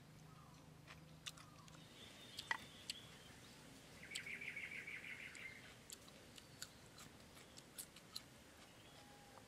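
A bird gives a fast pulsed trill lasting about a second and a half, a little before midway, with a short falling whistle shortly before it. Faint sharp clicks and crunches of someone chewing food are scattered throughout.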